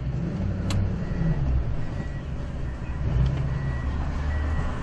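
A vehicle engine running with a steady low rumble, with a single sharp click about a second in.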